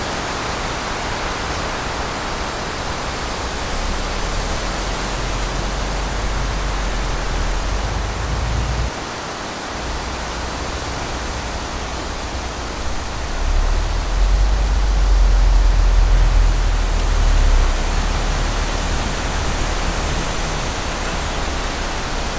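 Steady rushing noise with a heavy low rumble from wind and vehicle noise on the microphone inside the vehicle. The rumble drops out briefly about nine seconds in and is loudest between about thirteen and eighteen seconds in.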